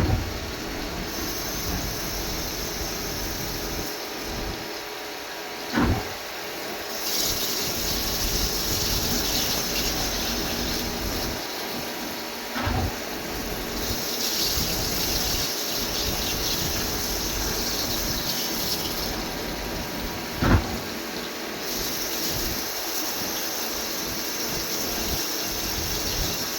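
CNC machine running through a repeating cycle: a steady mechanical hum, a sharp knock about every seven seconds, and a hiss lasting four or five seconds after each knock.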